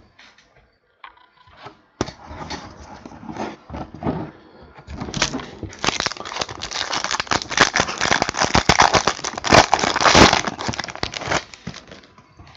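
Crinkling and crackling of a trading-card pack wrapper being handled and torn open. It starts about two seconds in, grows busier and louder from about five seconds, then stops shortly before the end.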